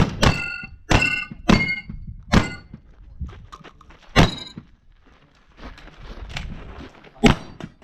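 Shotgun fired in quick succession during a match stage: five shots in about two and a half seconds, then two more spaced out. Several shots are followed by a short metallic ringing, as of steel targets being hit.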